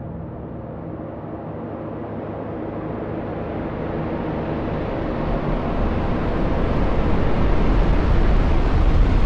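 Cinematic sound-effect riser: a noisy rumble that swells steadily louder and brighter, building up toward a hit.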